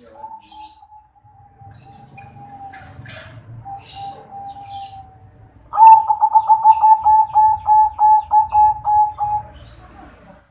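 Zebra dove cooing: a soft, drawn-out coo, then about six seconds in a loud, rapid string of short coos, about five a second, lasting some three and a half seconds. Small birds chirp faintly in the background.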